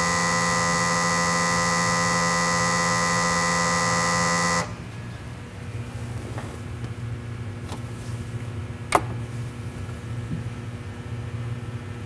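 Refrigerant identifier's sample pump running with a steady electric buzz as it draws refrigerant from the A/C low side for analysis. It shuts off abruptly about four and a half seconds in, which marks the start of the gas analysis. Afterwards only a low hum remains, with a single click about nine seconds in.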